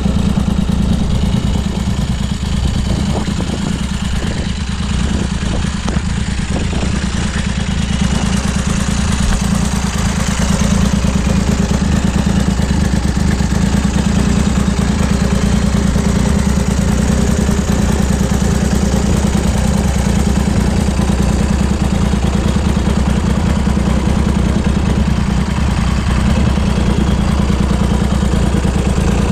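A 1971 BSA Rocket III's three-cylinder engine idling steadily.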